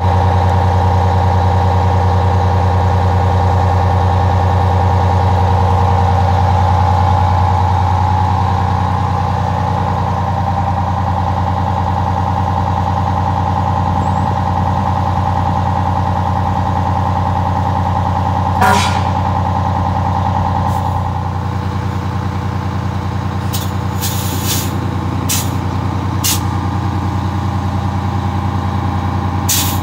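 Detroit Diesel 6V92 two-stroke V6 diesel engine of a fire engine idling steadily, heard close to its side exhaust outlet. A few short, sharp sounds stand out in the second half, the strongest about two-thirds of the way through.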